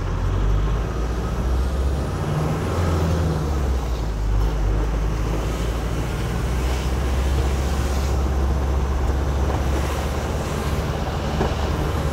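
Vehicle driving along a wet street, heard from inside the cab: a steady low engine and road drone with tyre hiss off the wet asphalt.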